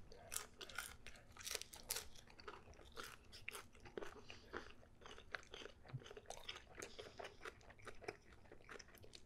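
A person chewing crisp pizza crust close to the microphone: a steady run of small, sharp crunches.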